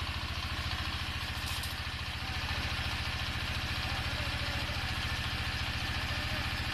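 Engine-driven floating-fish-feed pellet extruder running steadily, with a fast, even low throb from its motor.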